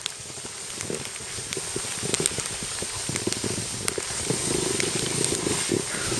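Snow hissing and scraping under a rider sliding downhill, with wind rushing on the microphone, getting louder as speed builds.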